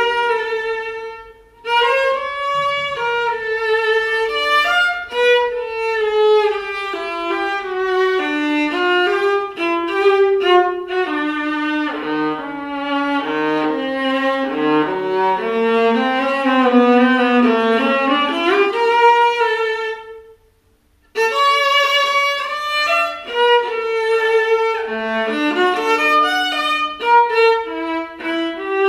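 Solo viola, bowed, playing a melody of moving notes, some of them down in its low register. The playing stops for about a second some twenty seconds in, then picks up again.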